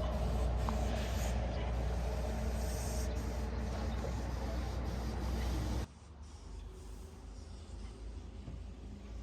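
Steady low vehicle rumble that cuts off abruptly about six seconds in, leaving a faint hiss.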